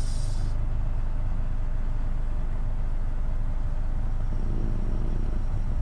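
Car subwoofer playing a steady, deep bass test tone while the amplifier's gain is being set for clipping.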